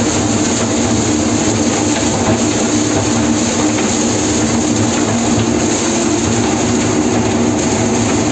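John Deere 952 combine harvesting corn, heard from the driver's seat: engine, threshing works and corn header running under load, a loud, steady mechanical drone with a low hum.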